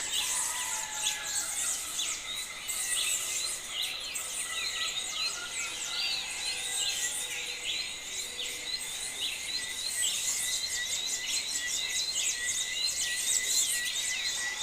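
A dense, steady chorus of many high, quick chirps and whistles from many birds calling at once.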